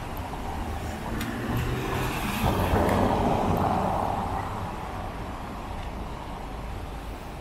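Car tyres hissing past on wet asphalt, swelling to a peak about three seconds in and fading over the next two seconds, over a steady wash of traffic noise on a rainy street. A few light ticks come just before the swell.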